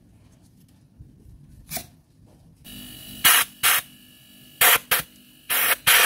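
Short hissing bursts of compressed air from an air blow gun, about seven in quick succession, over a faint steady hum. The air is blowing leaked engine oil out of a spark plug well whose plug tube seal is leaking.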